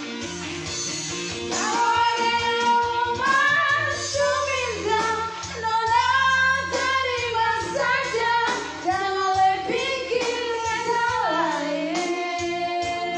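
A young woman singing into a handheld microphone over backing music, with long held notes; her voice comes in more strongly about a second and a half in.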